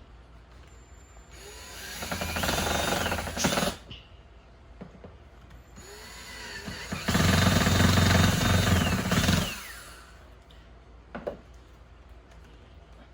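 Power drill driving two screws, two runs of a few seconds each, the motor speeding up as each starts.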